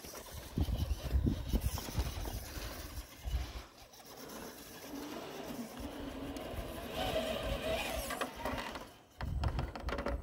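Scale RC crawler's (Axial SCX10 II) small electric motor and gearbox whining as it crawls over rock, the pitch shifting with the throttle. Low rumbling noise comes and goes near the start and again near the end.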